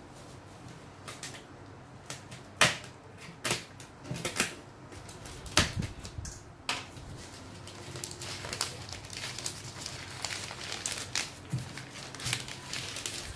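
Plastic courier bag wrapped tight over a cardboard box being picked at and torn open by hand: a handful of sharp snaps and taps of the plastic a second or so apart, then busier crinkling and tearing from about halfway.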